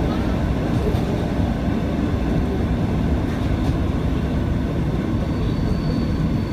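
ET2 electric multiple unit running, heard from inside the passenger car: a steady low rumble of wheels and car body on the track. A faint thin high tone comes in near the end.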